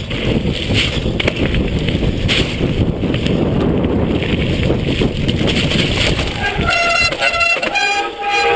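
Wind rushing over the microphone with tyre rumble and frame rattle from a mountain bike speeding down a wet gravel trail. About seven seconds in the rush dies down as the rider brakes for a corner, and the wet brakes squeal with a high, wavering tone for about two seconds.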